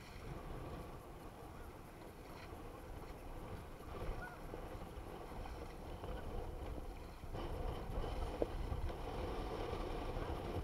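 Jet ski engine running with water rushing past the hull; the sound steps up louder about seven seconds in.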